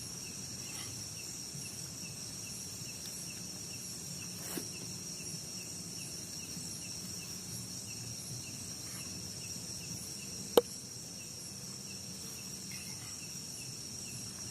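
Forest insects chirring in a steady, high-pitched chorus with a regular pulse. A single sharp click stands out about ten and a half seconds in, with a fainter knock around four and a half seconds.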